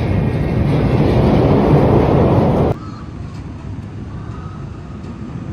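Roller coaster train rumbling along its track, a loud dense noise that cuts off suddenly under three seconds in, leaving a quieter steady background.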